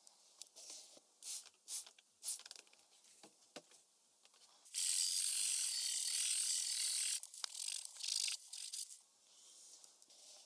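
Smith-Corona Calypso manual typewriter mechanism working: a few light clicks, then about five seconds in a loud, continuous ratcheting rasp lasting a couple of seconds, which breaks up and stops about nine seconds in.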